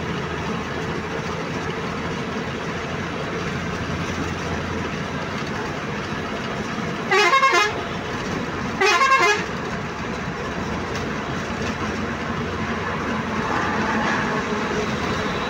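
Steady engine and road noise heard from inside a bus's cabin, with two loud, half-second horn blasts about a second and a half apart near the middle.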